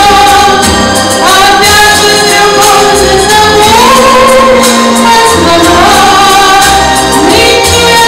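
A woman singing through a microphone over musical accompaniment, in long held notes that glide between pitches.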